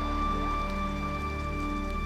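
Calm background music: a high note held over steady low tones.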